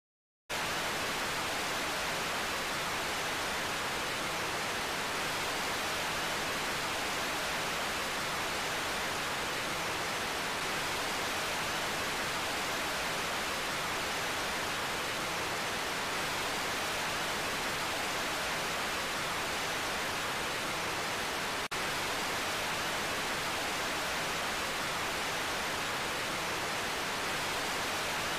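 FM radio static: a steady hiss that cuts in sharply about half a second in, the sign that the station's carrier has gone off the air and the receiver is picking up only noise. A tiny dropout breaks the hiss once, about two thirds of the way through.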